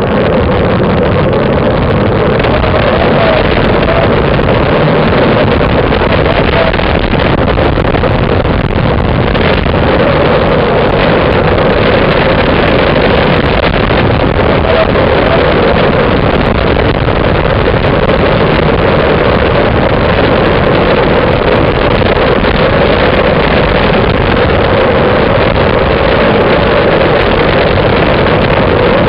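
Steady wind rushing over the microphone of a camera mounted on a moving road bike, mixed with road noise from the rolling tyres. It is loud and unchanging, with a steady drone underneath.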